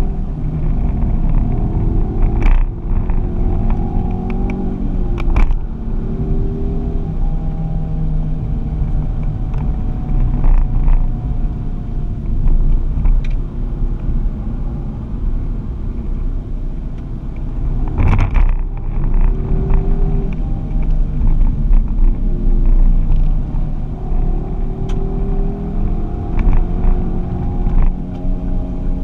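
Ford Focus ST engine heard from inside the cabin at lapping pace, with a steady low rumble. Its note climbs with the revs and drops back sharply a few times as it changes gear, each drop marked by a short sharp knock.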